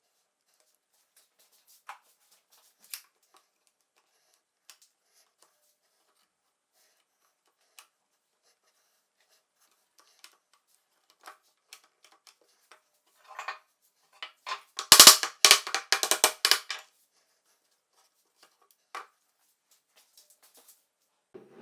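Scattered light clicks and knocks of tools and parts being handled in a workshop. About two-thirds of the way through comes a short burst of rapid, loud clattering.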